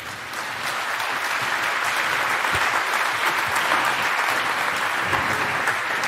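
An audience applauding, swelling up over the first second and then holding steady.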